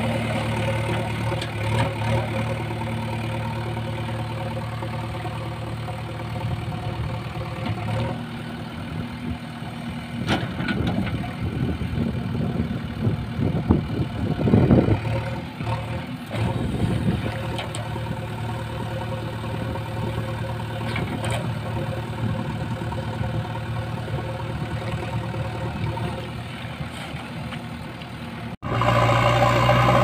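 JCB 3DX backhoe loader's diesel engine running steadily. For several seconds in the middle it turns louder and rougher as the backhoe arm pushes against a mud-stuck trailer. Near the end the sound breaks off abruptly and comes back as a louder, steady engine.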